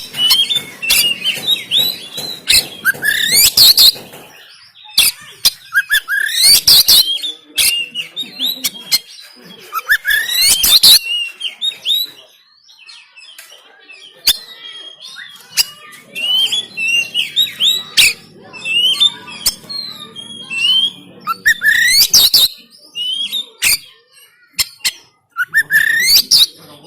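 Oriental magpie-robin (kacer) singing loudly. Its varied song phrases mix rising whistled sweeps with harsh, rasping shot-like notes, coming in bursts every couple of seconds.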